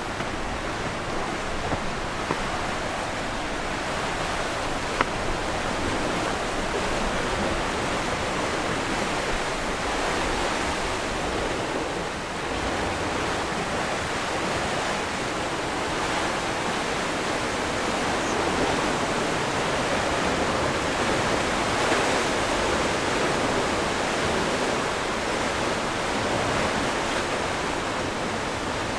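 Sea surf washing on the shore, a steady rushing that swells and eases slowly, with a short sharp click about five seconds in.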